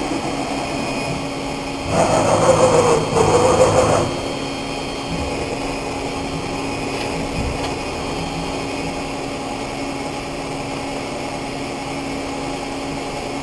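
A 1985 Bridgeport Interact 516 vertical machining center running with its spindle turning, giving a steady machine hum. About two seconds in it gets louder for about two seconds, with a pitch that dips and comes back up twice, then settles back to the steady hum.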